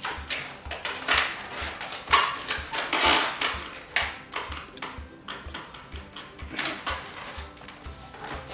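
Latex modelling balloon being twisted and squeezed into shape, the rubber squeaking and rubbing in a series of short squeaks, loudest about one, two, three and four seconds in.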